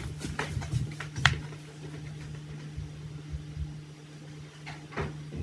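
Room tone with a steady low hum. There are several faint knocks in the first second or so and one more near the end.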